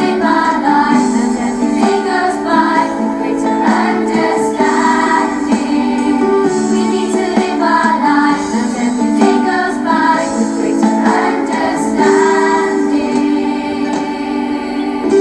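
Background music with singing, a melody carried over sustained chords.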